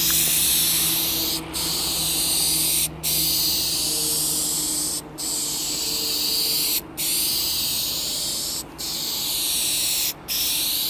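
Dupli-Color Perfect Match aerosol spray paint can hissing as a coat is sprayed across a car hood, in long passes broken by six brief pauses where the nozzle is let go between strokes.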